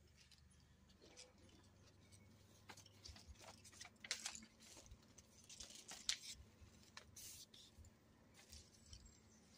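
Faint rustling and crinkling of a sheet of paper cut into strips as it is handled and held up in front of a cordless fan running on low.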